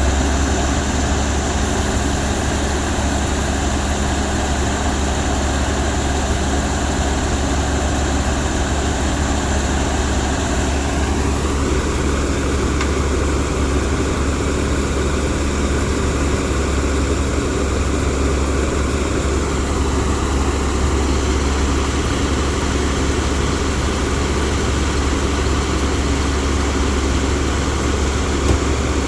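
Rice combine harvester running steadily at a loud, even level with a deep hum, its higher tones rising about eleven seconds in and shifting again near twenty seconds.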